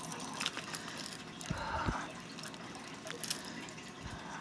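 Faint small clicks and clinks of a wristwatch's metal link bracelet being turned over in the hand, with a brief soft rustle about one and a half seconds in.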